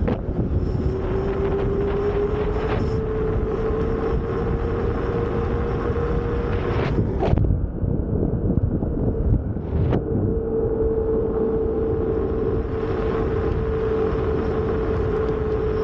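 Kingsong S18 electric unicycle riding on a knobby CST 186 off-road tyre: the tyre singing as one steady humming tone, rising a little in pitch over the first few seconds and dropping out briefly twice near the middle. Wind rushes over the microphone throughout.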